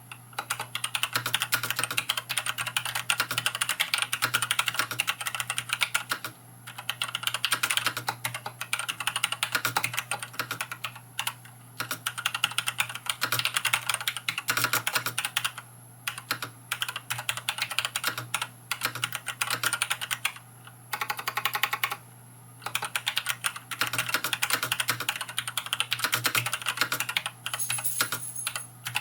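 Typing on a Varmilo VA108M full-size mechanical keyboard with Gateron Brown switches and PBT keycaps: long runs of keystrokes broken by short pauses every few seconds, with one longer pause a little past two-thirds of the way through.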